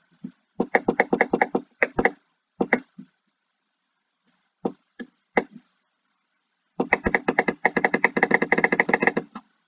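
Computer mouse button clicking: scattered single and grouped clicks, then a fast, even run of about ten clicks a second starting about seven seconds in. Each click dabs a low-opacity brush to build up the erase a little at a time.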